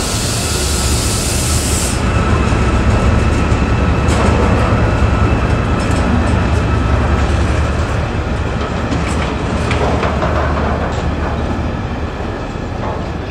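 A Direct Rail Services locomotive passes with a train of flask wagons, giving a steady low rumble of engine and wheels. A loud hiss sounds in the first two seconds as the locomotive goes by, then wheel clicks over the rail joints as the wagons pass, and the rumble fades a little near the end.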